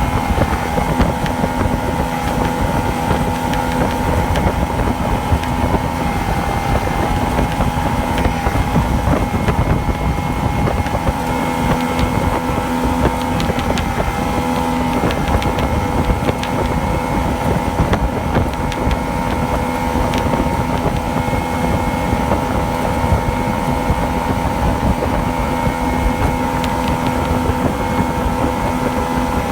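Yamaha two-stroke outboard motor running steadily under way, its pitch wavering briefly a few times. These wavers are the misfire and surge the owner is showing. Wind buffets the microphone throughout.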